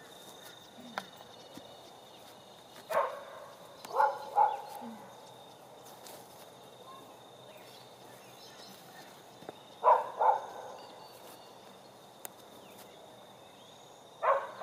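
A dog barking in short barks, mostly in pairs, a few seconds apart.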